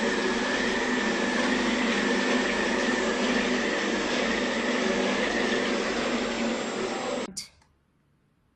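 500L liquid mixer's agitator motor running steadily with a high whine over it, then cutting off suddenly about seven seconds in.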